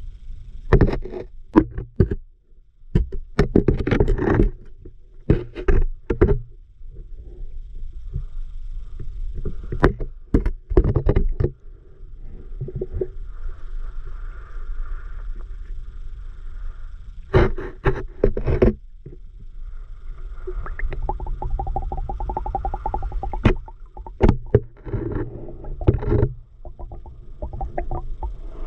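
Sound picked up by a submerged camera: a steady low rumble of moving water, with many knocks and scrapes in clusters, like the camera housing bumping and rubbing against the rocks.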